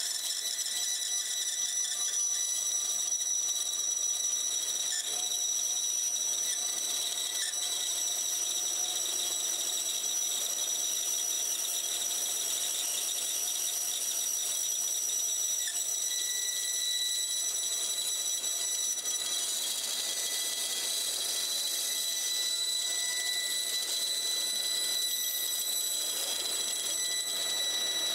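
Bandsaw running with a steady high-pitched whine as its narrow blade cuts slowly through a thick laminated wooden block.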